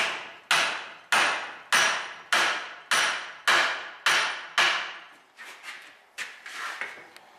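Hammer tapping steadily on a corroded Allis-Chalmers wheel eccentric casting clamped in a vise, a little under two blows a second, each ringing briefly. The tapping works the rust-seized eccentric pin back and forth to free it. The blows stop about five seconds in, and a few lighter knocks follow.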